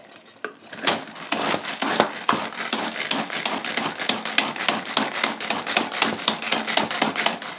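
Pull-cord manual onion chopper worked over and over, its spinning plastic blades clattering against the bowl as they chop onion. A fast, dense clatter of strokes starts about a second in and keeps going.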